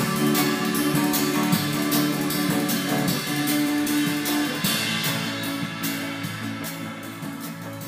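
Song's closing bars, guitar and drums over a steady beat, fading out.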